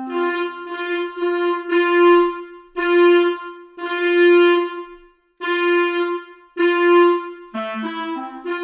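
Sampled orchestral woodwind from the Spitfire Studio Woodwinds library, repeating one sustained note about eight times. The first notes are short; the later ones are longer and swell in loudness. Near the end a quicker, two-part line of moving notes begins.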